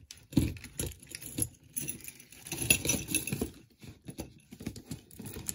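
Metal jewelry chains and pieces clinking against one another in many irregular small clicks as a necklace tangled in a pile of costume jewelry is handled and pulled loose.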